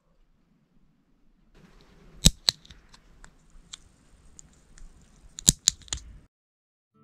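Lever-type nail clipper snapping through long, overgrown nails: two sharp clicks about two seconds in and three more close together near the end, with quieter rustling and scraping of the clipper against the nail between them.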